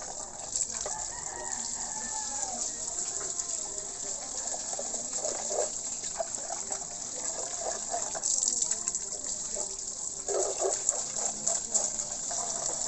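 Water running from a tap, a steady hiss, with a rooster crowing in the background near the start.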